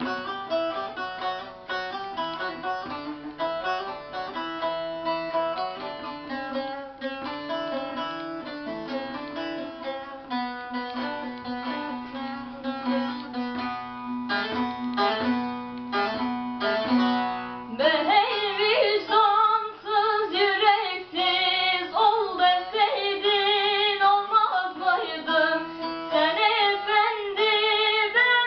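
Song with a plucked string accompaniment: an instrumental introduction of a picked melody over a held low tone, then about two-thirds of the way through a voice comes in singing with vibrato.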